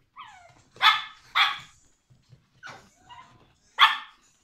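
Puppies barking: three loud, sharp barks, two close together about a second in and one near the end, with a few quieter yaps between and a short whine at the start.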